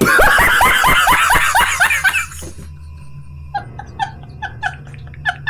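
A man's loud burst of laughter, a rapid run of repeated 'ha' pulses, for about two seconds. After a short pause come a string of short high-pitched squeaks, about three a second, over a low steady hum.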